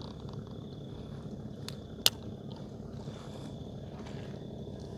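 Small boat engine running low and steady, with a thin steady insect trill above it. One sharp click or knock about two seconds in.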